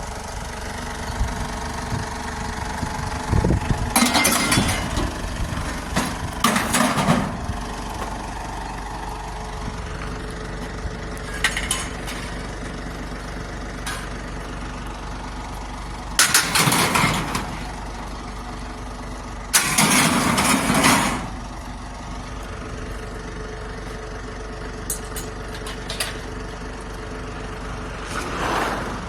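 Truck engine idling steadily, with about four loud clattering bangs over it, the loudest two around the middle.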